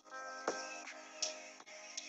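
Hip-hop instrumental beat with no vocals: held chords changing every half second or so, with a sharp drum hit about every half second.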